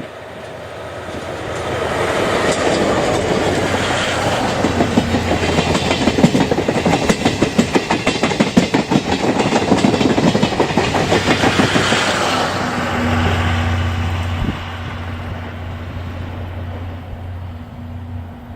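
A diesel-hauled passenger train, a DE10 diesel-hydraulic locomotive and its coaches, passing close by. It builds up, then gives a long rapid clickety-clack of wheels over the rail joints, and eases to a steadier low hum near the end.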